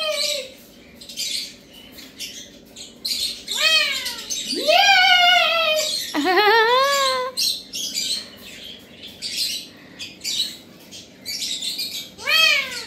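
Loud squawks, about five, each sweeping up in pitch and then falling, traded between a man calling at a pair of rose-ringed parakeets and the parakeets answering in a mock fight.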